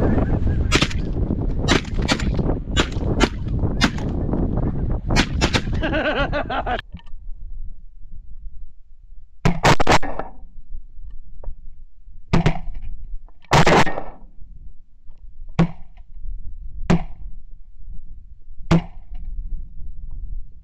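Shotguns firing at incoming geese: a rapid volley of sharp shots over the first several seconds, then, after a short pause, about six more single shots a second or two apart, each with a brief ring.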